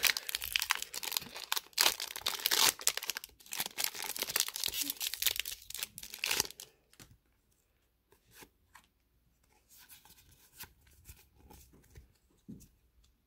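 Pokémon booster pack's foil wrapper being torn open and crinkled, a dense crackle for about six and a half seconds. After that come quieter, scattered rustles and soft ticks as the cards are handled.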